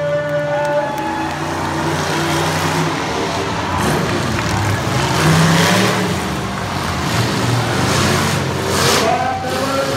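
Monster truck engines running and revving as the trucks drive across a dirt arena, with swells of louder throttle midway and again near the end.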